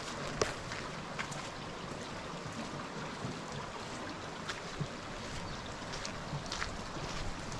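Steady outdoor ambience: an even rushing noise, like wind or running water, with a few faint ticks scattered through it.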